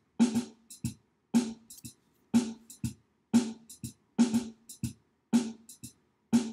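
Drum-machine beat: a low kick and a bright snare alternate at about two hits a second, with light hi-hat ticks between them.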